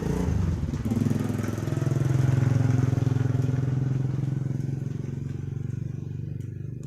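A motor vehicle engine running past, growing louder about two seconds in and fading away toward the end.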